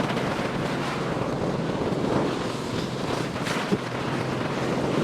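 Ocean surf washing steadily against shore rocks, with wind buffeting the microphone.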